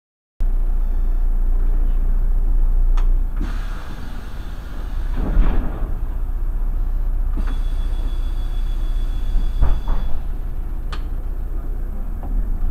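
Irisbus Crossway LE city bus running, heard on board: a steady low engine rumble after a brief dropout at the start. A hiss of air swells about five seconds in, a steady high tone sounds for about three seconds, and a few sharp clicks come near the end.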